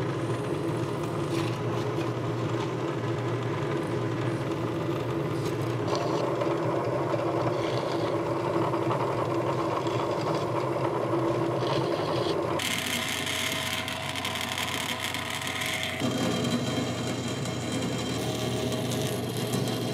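Workshop power tools running steadily: a drill press, then a band saw cutting a small sheet-metal guard piece. The sound changes suddenly about twelve seconds in, when a bright hiss comes in, and again about sixteen seconds in.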